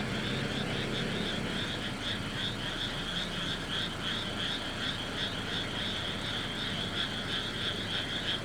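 Steady chorus of rapid, high-pitched chirping calls from small animals such as frogs or insects, pulsing several times a second. A low engine drone underneath fades out in the first few seconds.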